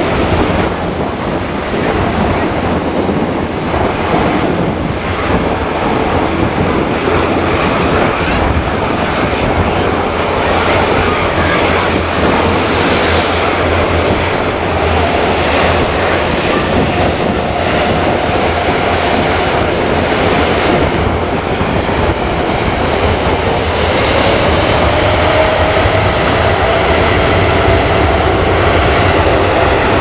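Widebody jet airliner's engines running as it moves along the runway, a loud steady rush with a faint engine whine that rises slightly in pitch in the second half. Strong wind buffets the microphone.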